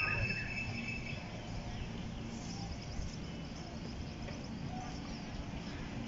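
Steady low outdoor rumble with a faint hum. Birds chirp during the first second, then fade out.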